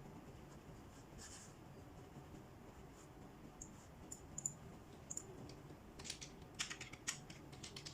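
Faint clicking of a computer keyboard and mouse over a low background hum: scattered single clicks at first, then a quick run of key-like clicks from about six seconds in.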